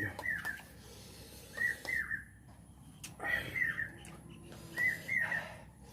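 A bird calling: a high two-note call, each note dropping in pitch, repeated four times at about one-and-a-half-second intervals.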